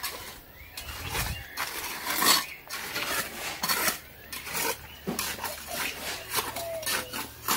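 A trowel scraping and tapping in wet concrete in a trench: an irregular run of short scrapes and knocks.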